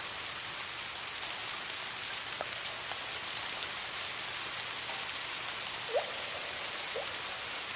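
Steady soft rain hissing, with water drops now and then plinking in short rising notes, most clearly about six seconds in.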